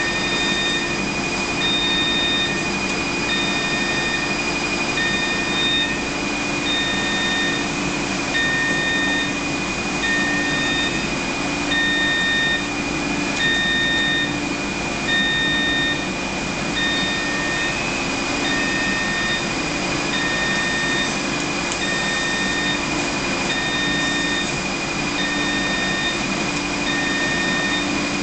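Steady running hum and hiss of a wafer developer track and its cleanroom air handling, with an electronic beep that repeats about once a second throughout.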